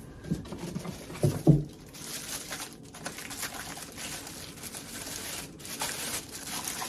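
Packaging being handled while a vacuum's parts are unpacked: a couple of knocks about a second in, then steady crinkling and rustling.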